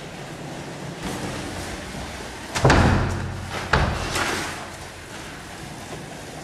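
A door thumping twice, about a second apart, as it is pushed shut or knocked against.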